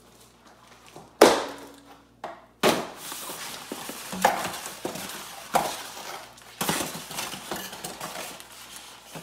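Styrofoam packing inserts being pulled out of a cardboard box, squeaking, creaking and rubbing against the cardboard and each other, with a sharp knock about a second in and another shortly after.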